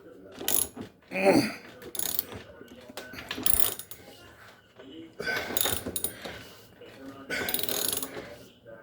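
A wrench ratcheting in short bursts of clicking, working a damper-shock mounting bolt on a front-load washer.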